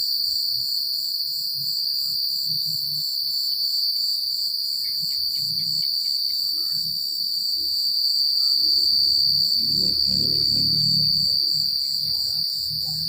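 Night chorus of crickets chirping: a steady, high-pitched trill with a quick pulsing layer above it. A faint low rumble swells and fades in the second half.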